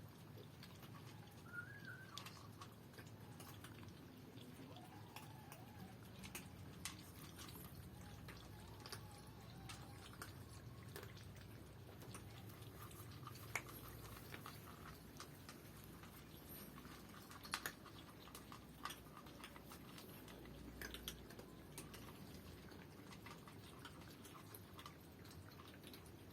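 Near silence: quiet room tone with faint scattered clicks and a brief faint high chirp about two seconds in.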